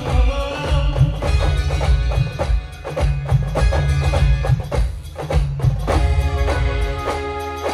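Indian brass band playing: rapid drum and percussion strikes over a heavy bass drum. About six seconds in, the horns come in with long held notes.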